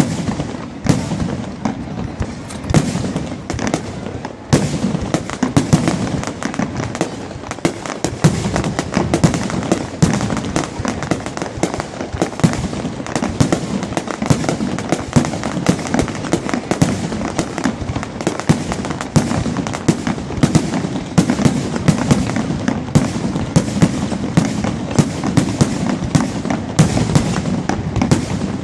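Fireworks bursting in a dense, continuous barrage: many overlapping bangs and crackles with no pause.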